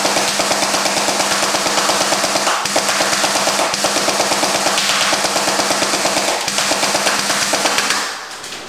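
G&G FN Herstal SCAR battery-powered airsoft rifle firing one long full-auto burst of about 100 rounds: a fast, even rattle of the gearbox cycling over a steady motor hum. The burst stops about eight seconds in.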